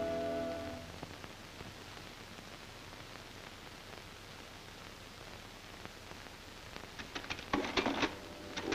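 Background music ends about a second in, leaving faint soundtrack hiss; about seven seconds in, a mechanical adding machine starts clacking in quick irregular strokes as its keys are punched.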